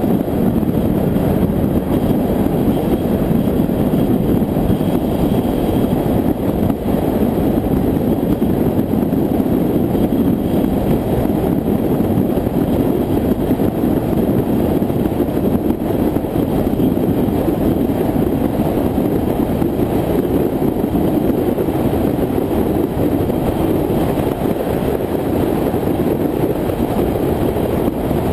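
Steady rush of wind and tyre-and-road noise from a car cruising on a highway, with wind buffeting the microphone; no distinct engine note stands out.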